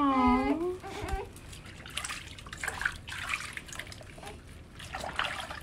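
Newborn baby's cry that breaks off about a second in, followed by water splashing and trickling in a small baby bath as the baby is washed by hand.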